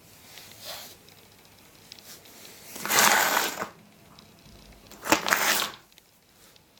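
Newly installed door creaking and scraping as it is swung: a faint stroke, then two loud rasping strokes about two seconds apart, the last beginning with a knock. The creak is the fault that showed up after installation.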